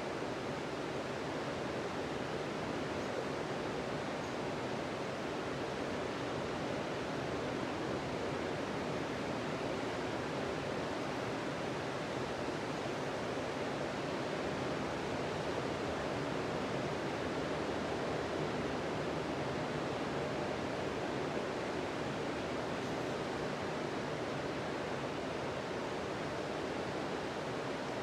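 Sea surf breaking on a sandy beach: a steady, unbroken wash of waves with no single wave standing out.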